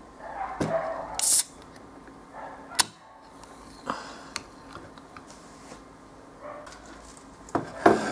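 A Schweppes lemon soda aluminium can is opened by its pull tab: a short, sharp hiss of escaping carbonation, then a few light metallic clicks of the tab. A louder knock comes near the end.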